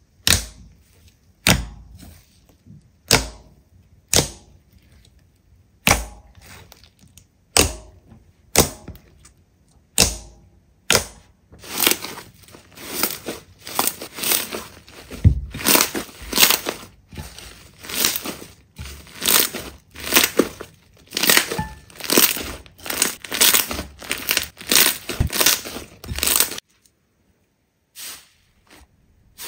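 Slime being squeezed and pressed by hand, giving sharp crackles and pops. They come singly at first, then in a dense run of crackling that cuts off suddenly near the end.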